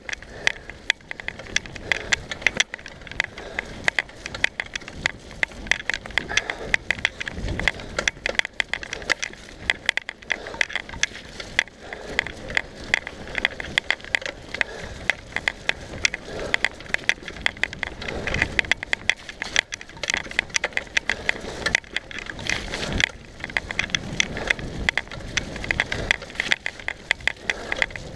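Mountain bike riding fast down a bumpy dirt trail: tyres on the dirt and a constant clattering rattle of the bike over the rough ground, many sharp clicks and knocks a second.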